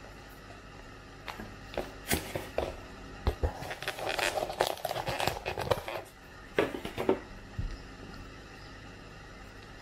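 A small plastic condiment sachet crinkling and rustling as it is peeled off a plastic bowl lid and handled, with short plastic clicks and taps. The rustling starts about a second in, is densest in the middle and stops about two seconds before the end.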